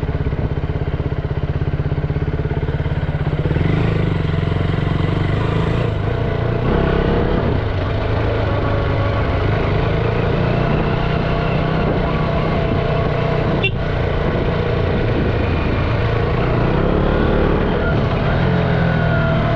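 2014 KTM Duke 200's single-cylinder four-stroke engine running under way, its note stepping up a few seconds in and shifting with the throttle after that. A single short click about two-thirds through.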